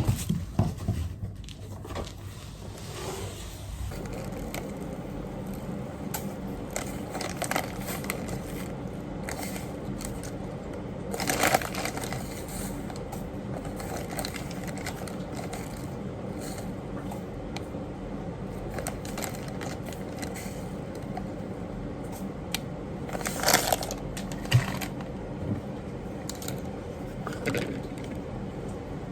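Steady low mechanical hum with several short, louder noises over it, the strongest about eleven and twenty-three seconds in.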